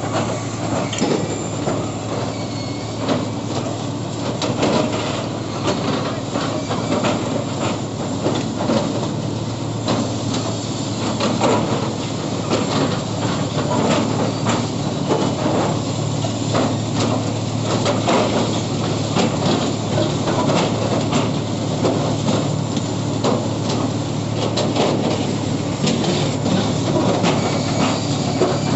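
New Track Construction (NTC) track-laying machine at work: its engine runs steadily under frequent, irregular metallic clanks and knocks.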